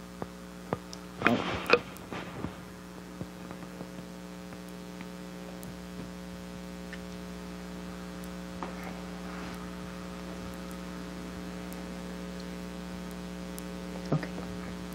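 Steady electrical hum with a stack of overtones on the recording. A few faint clicks and a short noise come in the first two seconds or so, and another click comes near the end.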